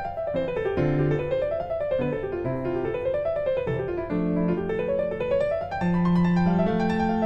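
Instrumental music: quick runs of notes rising and falling in waves over held low notes.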